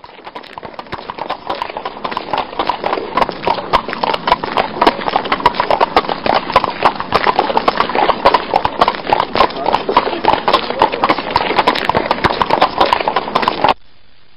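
Horse-drawn wooden cart: hooves clip-clopping among the knocks and rattles of the cart. It fades in over the first few seconds and stops suddenly near the end.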